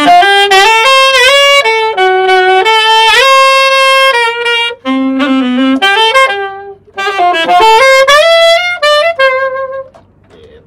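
Solo alto saxophone playing a jazz pentatonic lick that shifts between keys: runs of quick notes with scooped, bent pitches, broken by short breaths, ending about ten seconds in.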